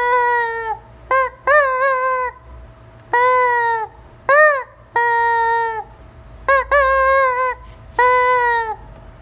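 Rubber squawking chicken toy squeezed over and over, giving a string of loud honking squawks about once a second, some long and some cut short.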